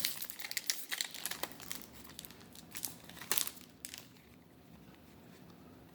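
Yu-Gi-Oh trading cards and a foil booster-pack wrapper being handled, crinkling with small sharp clicks and rustles. The sound dies away about four seconds in.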